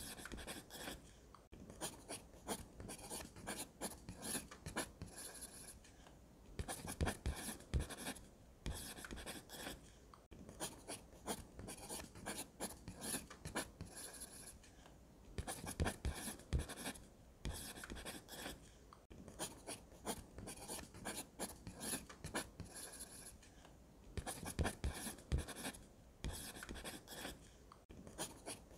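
Graphite pencil scratching across sketch paper in runs of quick strokes, with short pauses every few seconds.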